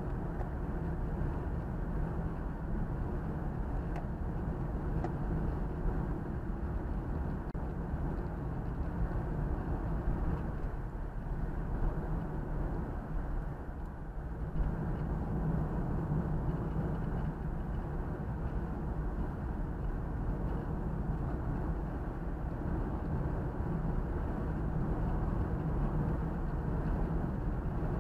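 Steady road noise from a car driving along an open road: tyre roar and engine hum, dipping briefly about halfway through.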